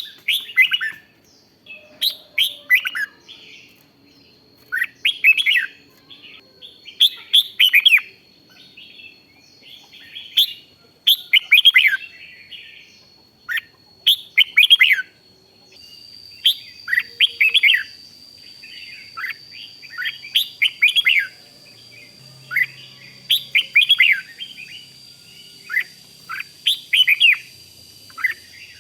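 Red-whiskered bulbul singing: short, bright warbling phrases repeated every second or two, often in quick pairs.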